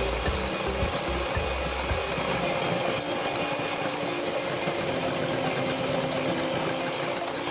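Electric hand mixer running steadily, its beaters whipping whipped-cream powder and cold milk in a glass bowl as the mixture thickens into whipped cream.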